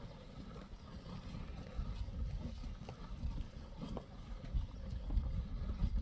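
Low, uneven rumble of wind on the microphone, with faint short squirts and sloshes of a cow being milked by hand into a pail.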